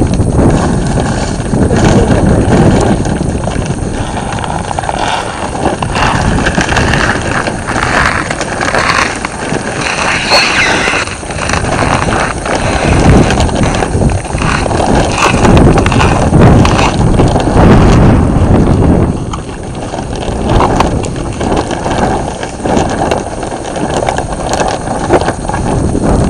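Loud, uneven rumbling noise on the microphone, with no clear tones, swelling and easing every few seconds.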